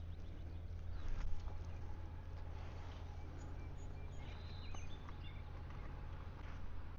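Low wind rumble on the microphone, with light scuffs and a knock about a second in as an asphalt roof shingle is slid back up into its course. A bird chirps faintly a few times midway.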